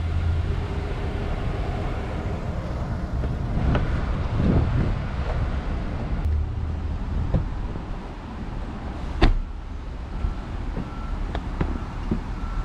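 A car running with a steady low rumble and scattered knocks, and one sharp loud knock about nine seconds in. A short beep of one high tone then repeats several times near the end.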